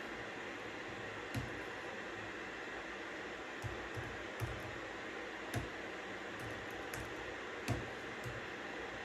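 Steady white-noise hiss with a few isolated computer-keyboard keystrokes clicking at irregular intervals.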